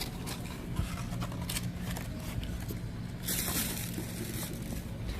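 Rustling and small clicks of bags and items being handled, with a louder burst of rustling about three seconds in, over a steady low hum.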